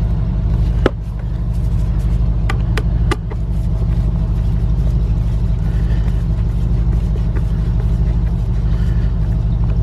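Steady low rumble of a running engine, with a few sharp clicks about one to three seconds in as screws and a screwdriver are handled at the door panel.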